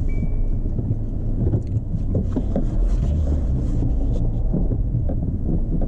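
Steady low rumble of a vehicle on the move, heard from inside the cabin, with scattered small knocks and rattles. A short, high, steady beep sounds right at the start.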